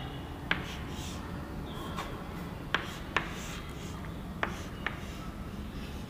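Chalk on a blackboard while gate symbols are drawn: soft scraping with about five sharp taps of the chalk against the board, over a low steady room hum.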